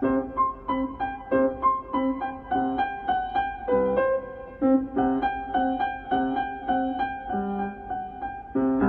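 Background music: a light piano melody with a steady rhythm.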